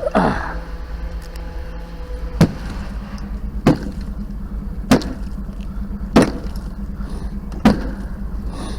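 Five sharp knocks, evenly spaced about a second and a quarter apart, as the waterlogged cash register recovered by magnet fishing is banged to knock out its contents. A short falling sound comes just after the start, and a steady low hum runs underneath.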